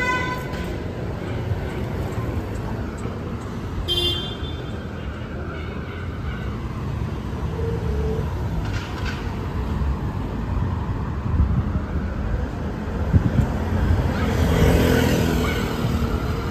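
City street traffic: cars and scooters passing with a steady low rumble, a short horn toot about four seconds in, and a vehicle swelling past close by near the end.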